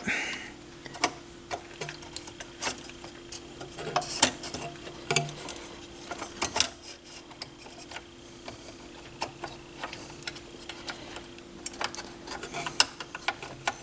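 Irregular small clicks and taps of turntable parts being handled and fitted back into a Harman Kardon ST7 linear-tracking turntable's mechanism during reassembly, with a few sharper clacks about 4, 5 and 6.5 seconds in.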